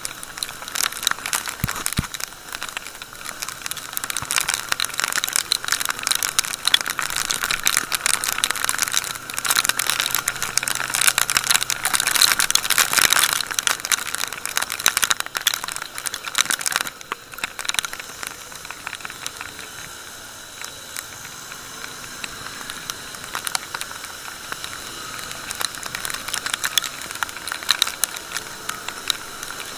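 Rain hitting the rider's camera and its microphone on a moving motorcycle: a dense crackle of drop impacts over a steady hiss of rain and wet road. The crackle eases noticeably a little past halfway through.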